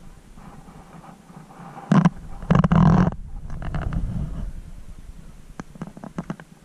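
Boots crunching and scuffing through snow, with rustling against a body-worn camera. Two loud crunches come about two seconds in, softer scuffs follow, and a quick run of faint clicks comes near the end, over a low wind rumble on the microphone at the start.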